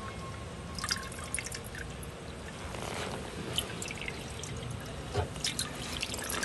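Water dripping and splashing from the air-lift tubes of an air-powered deep water culture bucket into the net pot, pushed up by bubbles from the air pump. The drips and splashes are irregular and come more often in the second half.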